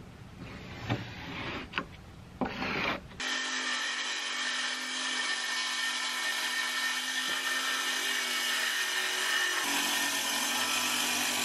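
A few short scratches and taps of a pencil marking plywood, then from about three seconds in a DeWalt 18-volt cordless circular saw ripping a sheet of plywood lengthwise, running with a steady whine.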